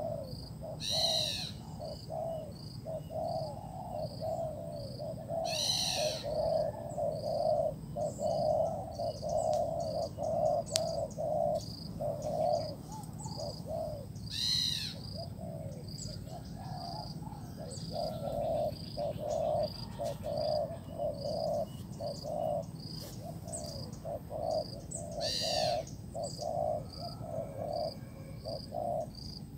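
Spotted doves cooing: a low run of coos repeated in quick succession, broken by short pauses. A pulsing insect trill runs behind it, and a high call sliding down in pitch cuts in four times.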